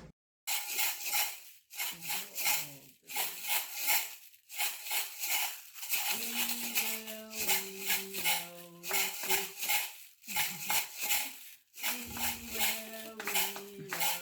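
A homemade shaker made from recycled materials, with beads rattling inside, shaken in quick rhythmic bursts with short pauses between them.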